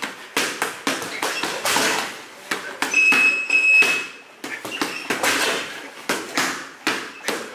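Quick, uneven series of thuds and slaps, with a short high-pitched squeak held for about a second, about three seconds in.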